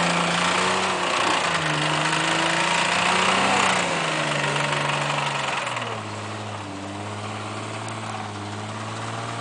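Off-road truck engine working hard up a rock climb, held at high revs over a loud grinding, scrabbling noise of tyres and rocks for about four seconds, then dropping to a lower, steadier speed about six seconds in.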